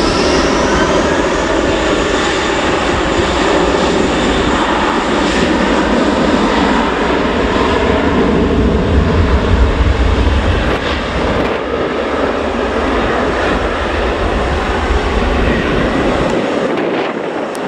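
Jet airliner's engines running loud and steady, with a low rumble that is strongest around the middle and fades away near the end.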